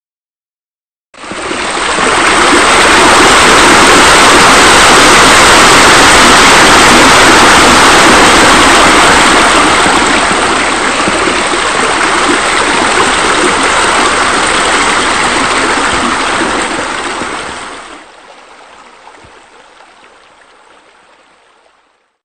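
Steady rushing water, like a stream or waterfall, starting abruptly about a second in, then dropping away sharply and trailing off faintly near the end.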